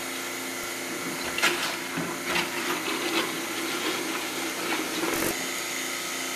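Milking machine's vacuum pump running steadily while hot sanitizing water and air are sucked from a bucket through the claw and teat cups. The sucking comes through as irregular surges over the pump's hum, as the claw is bounced to agitate the water.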